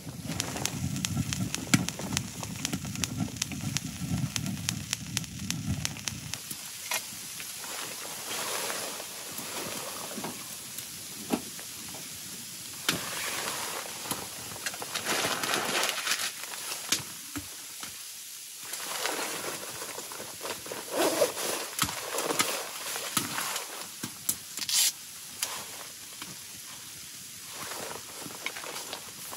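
Wood fire crackling in a small tent wood stove, with scattered clicks and stretches of scraping and rustling as a knife is worked on a piece of wood. A low rumble underlies the first six seconds.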